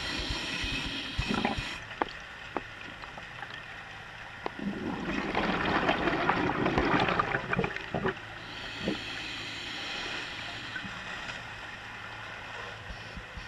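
A diver breathing underwater through a regulator: a hiss of inhalation, then a long rush of exhaled bubbles in the middle, then another softer hiss, with a few small knocks from handling gear.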